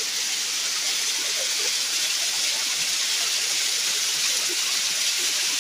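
Steady rush of a stream running over rocks.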